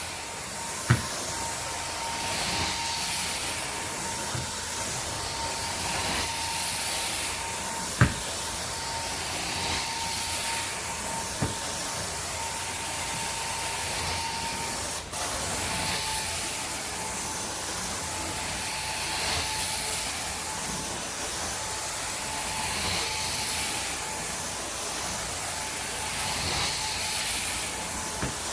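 Carpet-cleaning extraction wand running over carpet: a steady hiss of spray and suction over a constant whine, swelling and easing with each stroke about every second and a half. Two short knocks, the louder one about eight seconds in.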